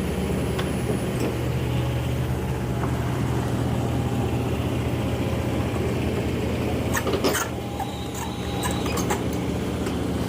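Heavy diesel machinery engine running steadily at a low hum, with a brief burst of metallic knocks and clatter about two-thirds of the way through.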